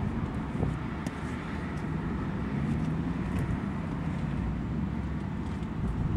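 Steady rumble of road traffic passing on the street, heard from inside a parked car through its closed windshield.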